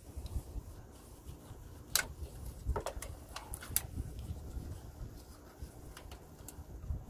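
Scattered light plastic clicks and rustling from gloved hands working a zip tie around parts behind a car headlight, a few separate clicks about two to four seconds in and two more near the end, over a low steady rumble.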